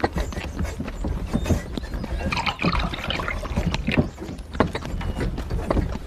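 Horse-drawn carriage on the move: hooves clip-clopping irregularly over a steady low rumble from the wheels and cab.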